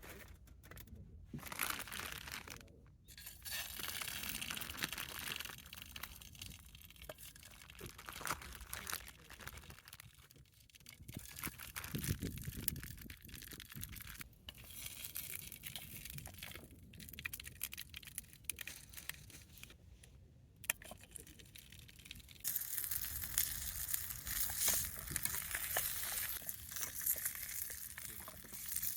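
Irregular crinkling and rustling handling noises, then about three-quarters of the way in a steady sizzle starts as food begins frying in a pan.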